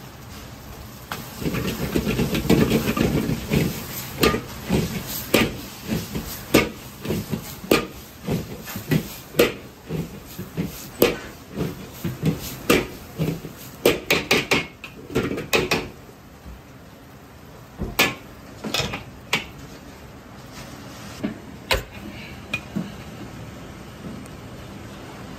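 Metal ladle clanging and scraping against a wok as fried rice is stir-fried and tossed over high heat, with a burst of sizzling a couple of seconds in. Sharp, irregular knocks come about one or two a second, then thin out to a few last knocks.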